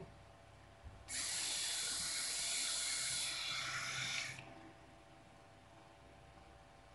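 Philips AT610 three-head rotary electric shaver: a click about a second in, then the shaver runs with a steady high whir for about three seconds and stops abruptly.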